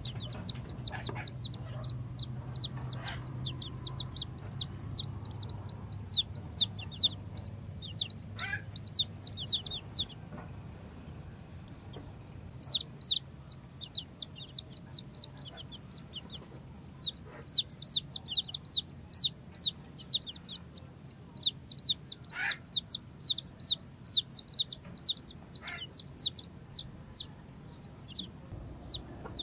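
Newly hatched chicks peeping: a dense stream of short, high peeps that fall in pitch, with a brief lull about a third of the way in.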